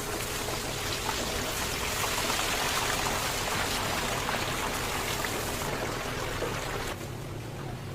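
Chicken deep-frying in hot oil: a steady sizzling hiss with small crackles, thinning out about seven seconds in.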